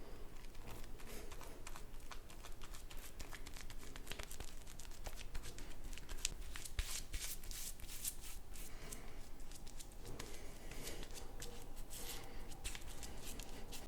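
Razor shaving stubble off a face: quick, repeated short scraping strokes, some heavier passes in the middle.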